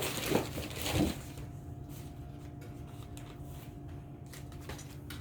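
Slime being squeezed by hand: three short, soft squelches in the first second or so, then only a faint steady hum.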